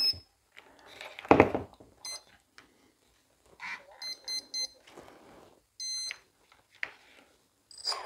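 Brushless ESC beeping through its outrunner motor after power-up: short high beeps, a quick run of three about four seconds in and single beeps between them. These are the ESC's start-up and arming tones. One loud knock about a second in.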